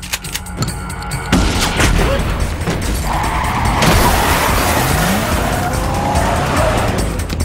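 Car-chase sound effects over a music score: tires skidding and cars running, with heavy impacts about a second in and again near the middle as cars collide.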